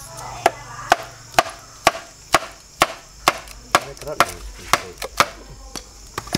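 Steady chopping with a blade: about a dozen sharp chops, roughly two a second.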